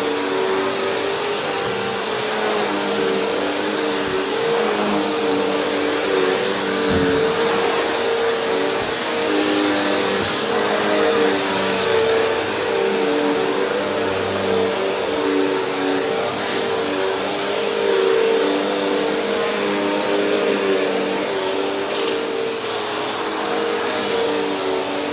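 Vacuum cleaner running steadily while vacuuming, a constant motor whine over airflow hiss, its pitch wavering slightly as the head moves.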